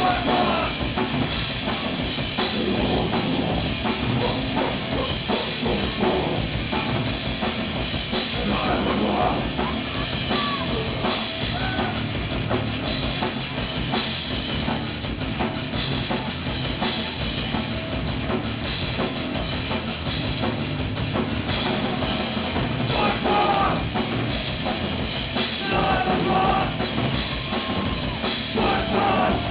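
Crust punk band playing live: a drum kit and distorted guitars in a loud, dense wall of sound with no breaks.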